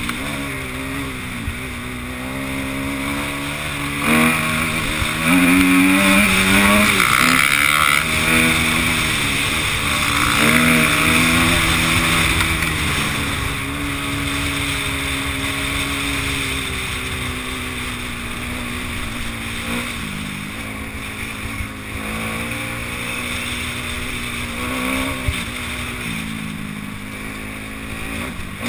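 Enduro dirt bike's engine heard from on board while riding a rough dirt trail, its pitch rising and falling with the throttle over a steady rush of wind and trail noise. It pulls hardest about four to eight seconds in and again around ten seconds.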